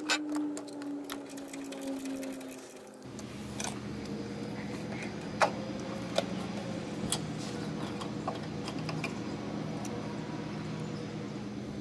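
Socket ratchet clicking rapidly as a 10 mm bolt is turned out, for about three seconds. Then a steady low hum sets in, with a few sharp metal clicks as the carburetor and throttle linkage are handled.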